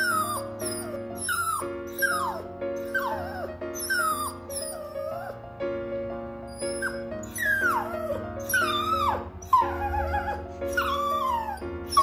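Toy poodle whining over and over: high cries that each fall in pitch, about one every half second, with a short pause about midway. She is crying from loneliness at being apart from her owner. Background music plays under it.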